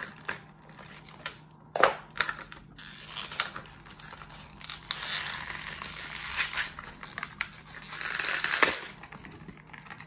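Clear plastic blister pack being cut and prised off its cardboard backing with a folding knife: crinkling, crackling plastic with a few sharp snaps, and longer tearing stretches in the second half.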